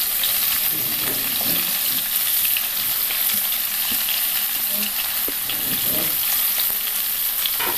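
Sliced onions sizzling steadily as they are tipped into hot ghee in a nonstick pan.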